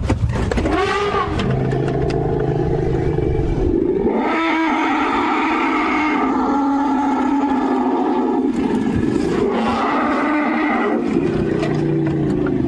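African elephants trumpeting in long, wavering calls that rise and fall in pitch, from a herd agitated by wild dogs and chasing them.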